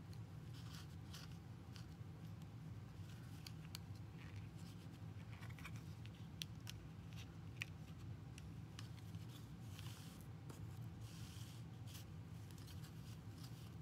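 Faint rustling and scratching of yarn being threaded through and pulled along the warp strings of a cardboard loom, with scattered small ticks, over a steady low hum.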